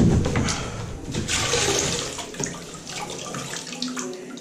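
Water sloshing and splashing in a grout-wash bucket as a hand and sponge are rinsed in it. It is loudest at the start, with a second spell of splashing about a second and a half in.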